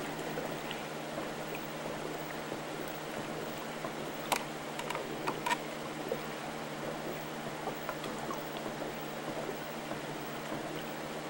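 Steady background hiss with a faint constant hum, broken by a few soft clicks about four to five and a half seconds in.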